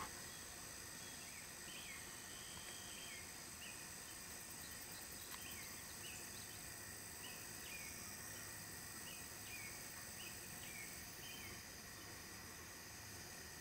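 Faint rural field ambience: a steady high-pitched insect drone on several constant pitches, with a bird giving short chirps again and again through it.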